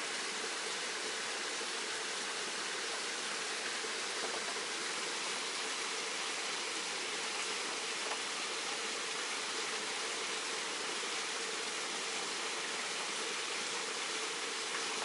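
Steady rushing and splashing of a small waterfall spilling over rocks.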